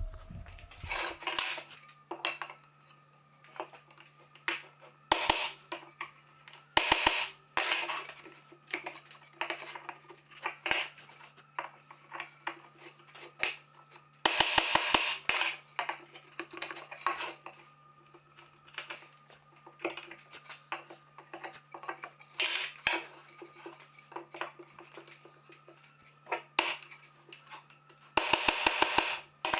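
Small metal tools being handled on a bench: sharp clicks, clinks and short scrapes, with two quick runs of rapid clicks partway through and near the end.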